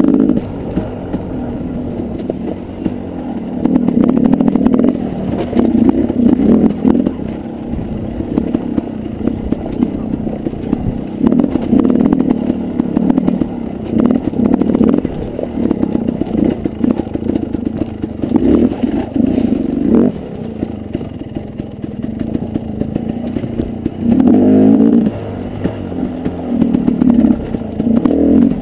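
Dirt bike engine revving in repeated bursts as the throttle is opened and closed over rough rocky ground, with the clatter and knocks of the bike jolting over stones.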